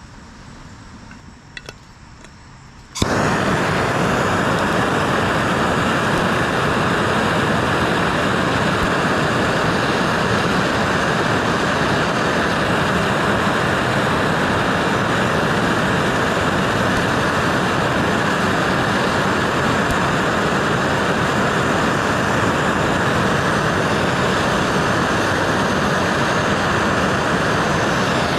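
Handheld gas torch lit about three seconds in, then burning with a loud, steady, even hiss while it heats steel for brazing. A few faint clicks come before it.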